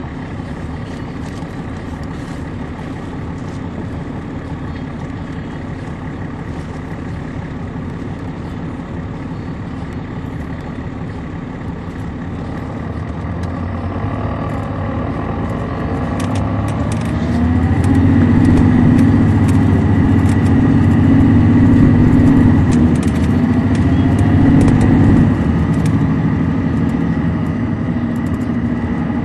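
Caterpillar C13 ACERT diesel engine of a 2006 MCI D4500CL coach, driving through an Allison B500 automatic transmission. It runs at a steady drone, then from about twelve seconds in it builds louder under acceleration with a rising whine. It is loudest for several seconds past the middle and eases off near the end.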